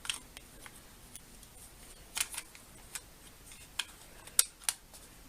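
Scattered small plastic clicks and taps as batteries are fitted into a TV remote and its battery cover is handled, the sharpest click about four and a half seconds in.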